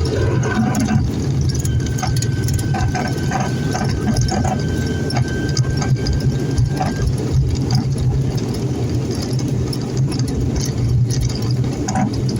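Cabin noise of an ATR 72-600 turboprop airliner: the engines' steady low drone, with light rattling from the cabin. A thin, steady high tone runs alongside for about five seconds, starting a couple of seconds in.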